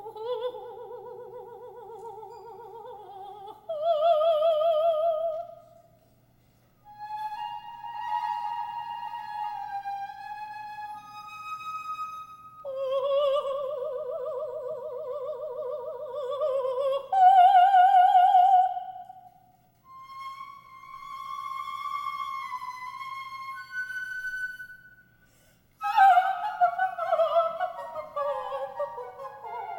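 Unaccompanied cadenza of an opera mad scene: a coloratura soprano holds long notes with a wide vibrato, and a solo flute echoes her phrases in turn. About 26 s in the voice sweeps down in a fast descending run.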